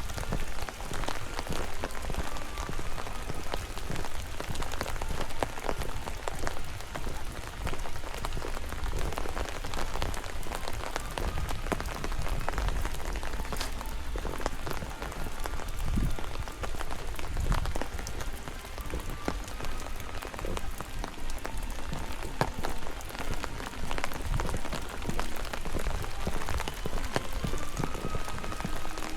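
Steady rain falling, with a constant hiss and many separate drops ticking close by.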